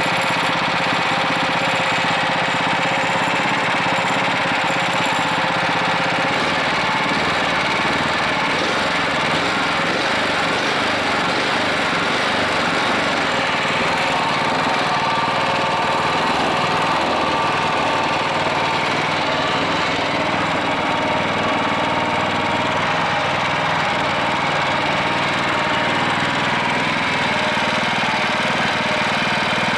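Lifan 20 hp single-cylinder petrol engine running steadily.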